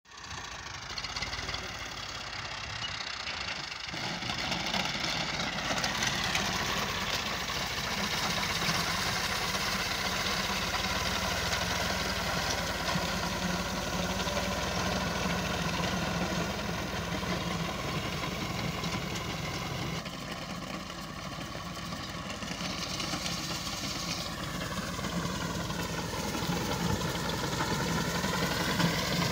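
Tractor diesel engine running steadily under load while driving a front-mounted reaper that cuts standing wheat. The pitch sags and recovers near the end.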